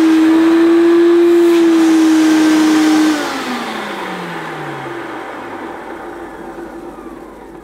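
Hoover Turbopower 2 upright vacuum cleaner's motor running with a steady whine while the hose end is blocked off, which puts its Autosense into the mid power setting. About three seconds in it is switched off and the motor winds down, the whine falling in pitch as it fades.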